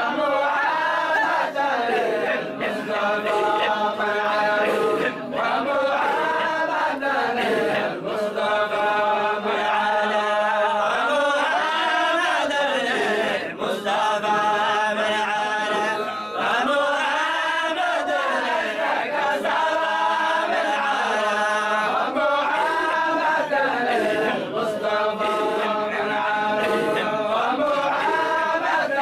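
A group of voices chanting a Sufi dhikr together in unison, the chant rising and falling in pitch in long repeating phrases without pause.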